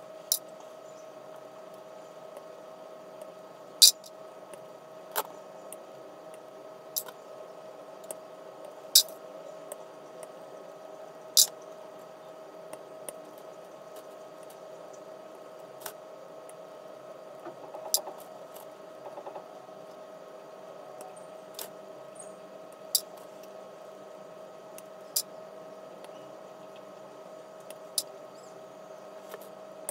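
Side cutters snipping model-kit parts off a plastic sprue: sharp, single clicks at irregular intervals, about a dozen in all, over a steady hum.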